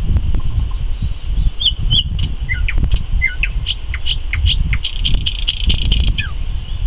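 Nightingale singing one phrase of short whistled notes, sharp clicks and falling slurs that ends in a fast, rattling trill. A steady low rumble runs underneath.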